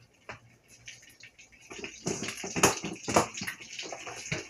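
Raw, seasoned chicken breasts squished and slapped together by hand in a plastic container, wet irregular squelches that start about a second and a half in, with a plastic lid pressed onto the container near the end.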